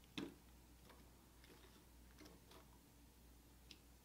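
Near silence with a few faint, short clicks. The sharpest comes about a quarter second in.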